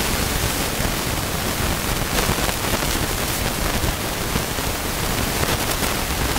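Loud, steady rushing hiss of noise, even from low to high pitch, with nothing else standing out in it.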